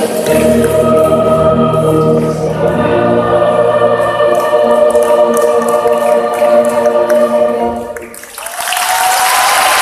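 Massed choir singing and holding a long chord that cuts off about eight seconds in; applause breaks out half a second later.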